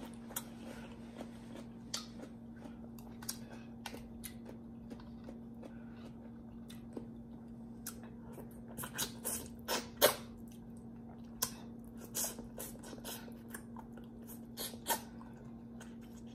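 Close-up mouth sounds of eating stewed turkey neck bones: chewing and sucking meat off the bones, with scattered wet smacks and clicks that come thickest around nine to ten seconds in. A steady low hum runs underneath.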